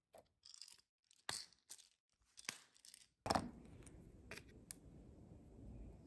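Faint clicks, taps and scrapes as a metal spoon, a plastic cream cheese tub and a small tablet are handled on a stone countertop: about half a dozen sharp ticks, the loudest a little over three seconds in.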